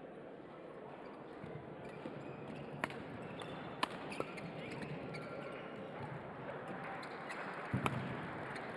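Badminton rally: rackets striking the shuttlecock, a few sharp cracks at uneven spacing over the steady noise of the sports hall, with a heavier thump near the end.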